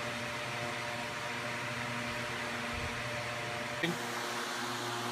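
Electric fan running steadily, a constant whir with a low hum, making artificial wind.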